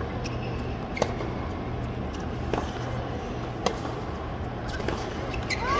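Tennis rally: rackets strike the ball with sharp pops about every one to two seconds, over the low hum of a stadium crowd. Right at the end a cry goes up and the crowd noise begins to swell.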